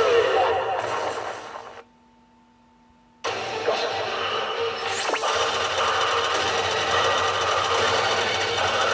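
Pachinko machine sound effects: the sound drops out suddenly to near silence for about a second and a half, then a steady, dense din of effects returns, with a falling swoosh about halfway through.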